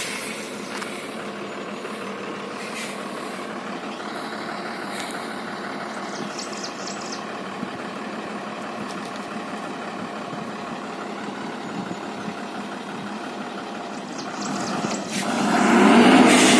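Loaded truck's diesel engine running steadily under load as it pulls a heavy cement load up a steep climb. About fifteen seconds in, the sound gets much louder.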